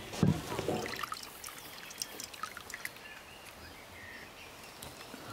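Liquid poured from a glass jar into an enamel bowl, after a heavy knock near the start.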